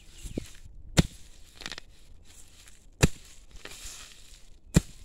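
A hoe blade chopping into hard ground three times, about two seconds apart, digging out tough, deep-rooted grass. Softer rustling of torn grass and soil comes between the strokes.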